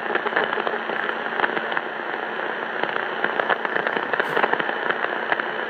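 CB radio static through the monitor speaker: a steady hiss full of dense crackling pops.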